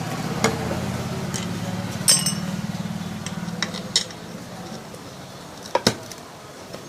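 Metal tools clinking against each other and against metal parts several times during a tyre puncture repair. A steady low hum runs under the first four seconds and then fades.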